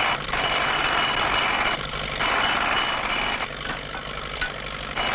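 Powered railroad spike-driving machine working on the track: a harsh mechanical noise in stretches of one to two seconds, with three short breaks between them.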